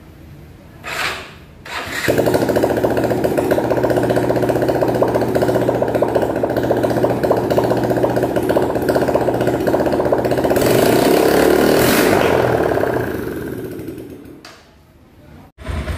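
Bajaj Discover's single-cylinder four-stroke engine starting after a top-end rebuild (new valves and cam bearings, tappets set loose). It catches about two seconds in and runs steadily, rises with throttle near the end, then falls away.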